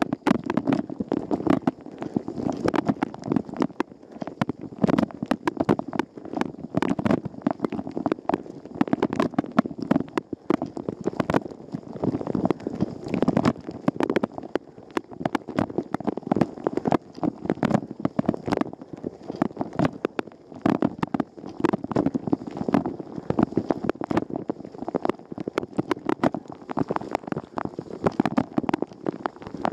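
Water from a Rosenlew dishwasher's spray arms splashing against the tub and the camera, heard from inside the machine during a wash: a constant, uneven stream of rapid splashes and hits.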